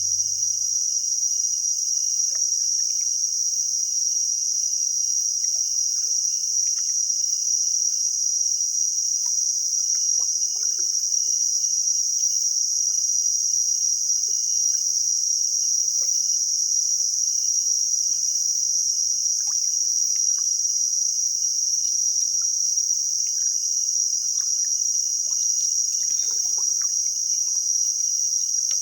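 Dense insect chorus keeping up one steady, shrill high-pitched drone without a break, with a fainter steady tone beneath it and a few faint scattered chirps and ticks.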